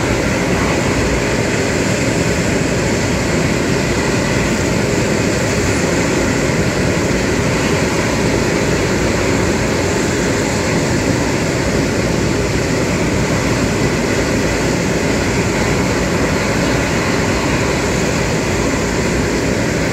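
Airbus A380's Rolls-Royce Trent 900 turbofans running at low taxi power as the aircraft rolls slowly past: a steady, unchanging jet rumble with faint high whining tones above it.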